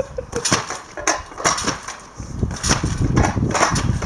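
A small stunt bike bouncing on a trampoline: a rapid series of knocks and rattles as its wheels and frame hit the mat, with a low rumble joining in about halfway through.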